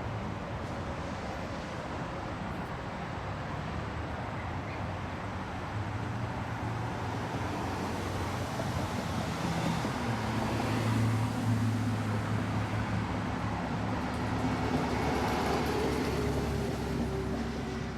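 Steady road traffic noise from a nearby interstate highway, tyres and engines. It grows louder in the second half as vehicles pass.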